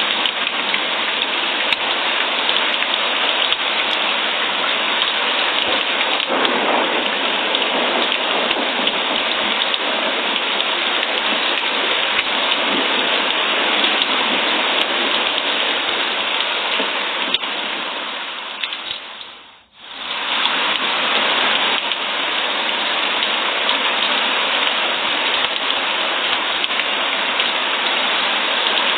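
Steady heavy rain falling, a dense even hiss, which fades almost to nothing and swells back within about a second two-thirds of the way through.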